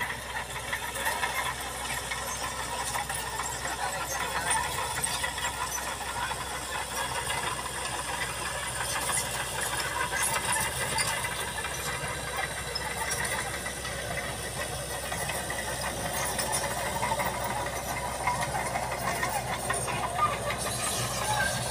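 Crawler bulldozer's diesel engine running steadily under load while it pushes earth, with scattered sharp clicks over the engine noise.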